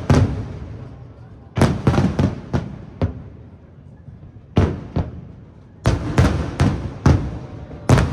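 Aerial firework shells bursting in quick clusters of sharp booms a second or two apart, each trailing off in a rumbling echo.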